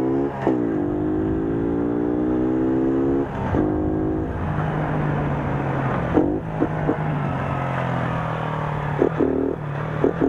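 A mobilete moped's small two-stroke engine running under throttle as it is ridden. The note dips and picks up again twice in the first few seconds, then settles to a lower, steadier tone broken by several short sharp clacks.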